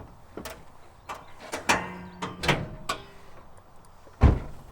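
A series of clicks and knocks, with a short creaking, squeaking passage in the middle, then one heavy thump about four seconds in.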